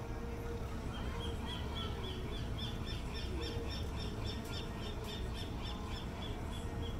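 A bird calling in a fast series of short, evenly repeated high notes, about four a second, starting about a second in and stopping just before the end, over a steady low rumble.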